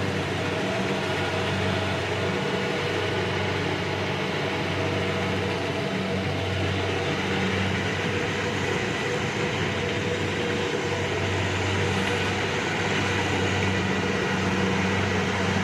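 Rice combine harvester's engine running steadily, a constant low drone.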